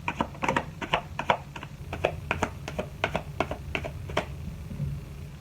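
Tarot cards being handled on a table: a quick, irregular run of light clicks and taps, about four or five a second, that stops a little after four seconds in, over a steady low hum.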